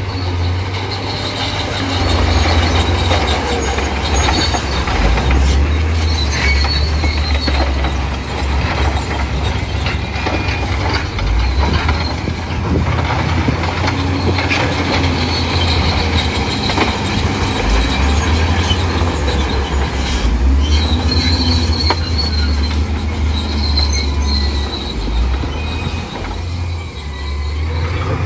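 Bulldozer working: the diesel engine runs with a heavy low rumble while the steel tracks clank and squeal on and off.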